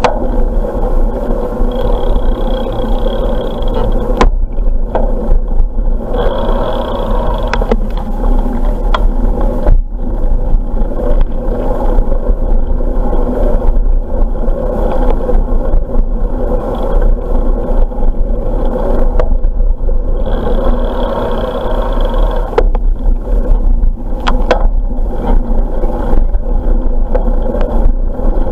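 Wind rushing over the microphone of a camera riding on a moving bicycle, with the tyres rolling steadily on smooth asphalt. A few sharp clicks or rattles come through now and then.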